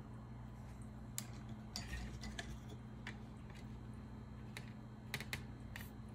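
Scattered light clicks and taps as a hand and brush work at a watercolor paint tin on a wooden table, over a steady low hum.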